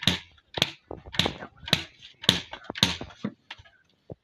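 Long sticks beating a heap of loose fibre on a tarp: sharp, swishing strokes at about two a second that stop about three seconds in.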